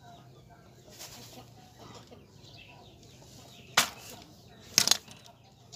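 Two sharp cracks of a tool striking the woody stump of a hoa mua (Melastoma) bonsai stock, about a second apart, the second one a quick double hit.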